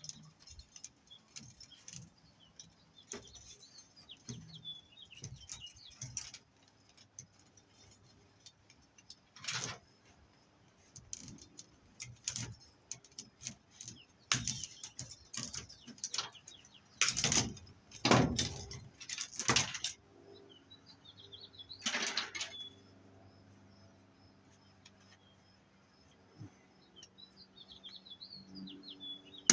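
Irregular bursts of rustling, scraping and clanking as metal-sheathed BX cable is handled and wire is pulled from it, loudest in a cluster about two-thirds through. Small birds chirp in between.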